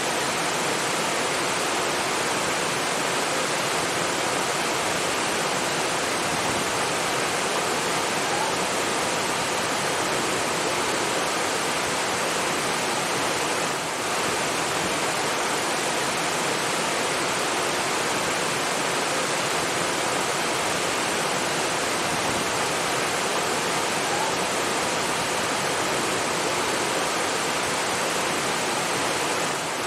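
Rushing water, a steady, unbroken rush like a waterfall or fast stream.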